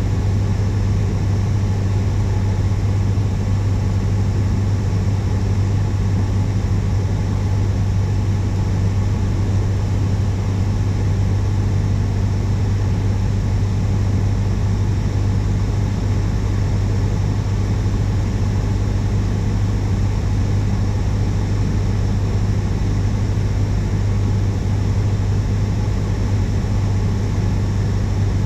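Steady drone of a single-engine light aircraft's piston engine and propeller in level flight, heard from inside the cabin, dominated by a strong low hum.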